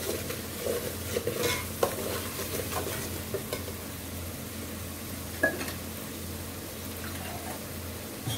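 Metal ladle stirring and scraping a thick onion-tomato masala in an aluminium pot, with clinks against the pot during the first three seconds or so and one more click a little later, over a faint sizzle of the masala frying in oil.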